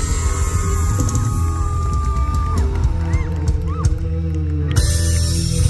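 Live band music: a long held chord over a heavy bass, with a few short rising-and-falling whoops from the crowd about halfway through and a bright hiss coming in near the end.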